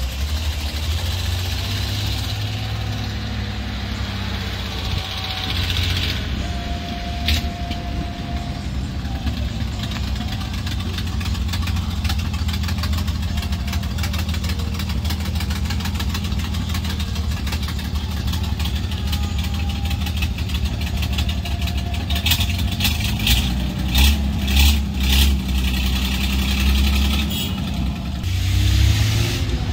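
Engines of vintage trucks running as they drive slowly past in a line, an old open-cab fire engine and then a Chevrolet dump truck, with a steady low rumble. A run of louder pulses comes about three quarters of the way through.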